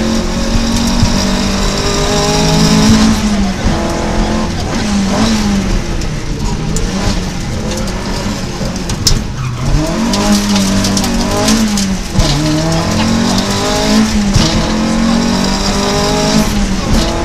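Opel Kadett GTE Group 2 rally car's four-cylinder engine heard from inside the cabin at full stage pace, revving up and dropping back again and again through gear changes and lifts for corners.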